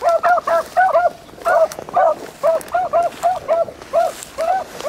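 Beagles barking in quick, short, high notes, about four a second, as hounds give voice while running a rabbit on its track.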